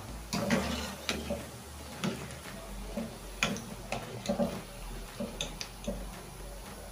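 Scattered light clicks and knocks of a kitchen utensil against a frying pot as fried chin chin pieces are scooped out of the oil.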